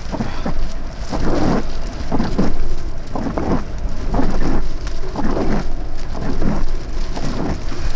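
Thunderstorm rain with gusting wind that buffets the microphone in irregular surges over a steady low rumble.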